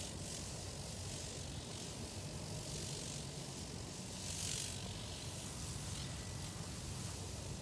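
Pesticide sprayer misting rose bushes: the hiss of fine spray from the nozzle swells and fades as it is swept across the plants, loudest about four and a half seconds in, over a steady low hum.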